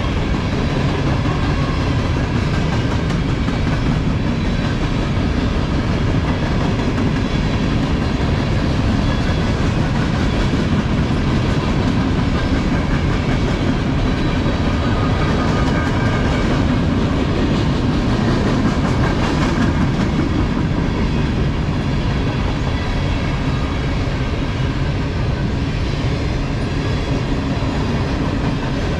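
Freight train's covered hopper cars rolling past, a steady rumble of steel wheels on the rails.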